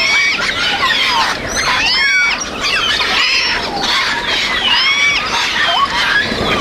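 Parrots calling: a rapid run of short, overlapping arched whistles and squawks with several harmonics, over a steady background noise.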